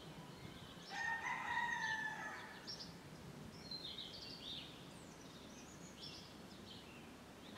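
A rooster crows once, faintly, about a second in, one long call, followed by scattered high chirps of small birds.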